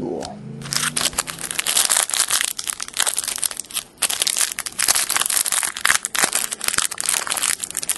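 Foil wrapper of a Panini Absolute basketball card pack crinkling as it is pulled open by hand. The dense crackle starts about a second in and breaks off briefly near the middle.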